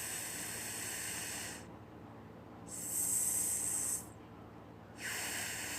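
A voice sounding a long, drawn-out hissing "sss" three times, the prolonged s sound that is taught for a double s.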